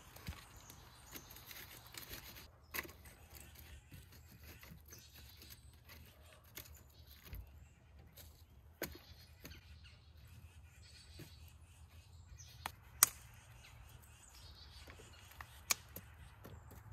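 Quiet outdoor ambience: scattered small clicks and knocks over a faint low rumble. The sharpest knock comes about thirteen seconds in.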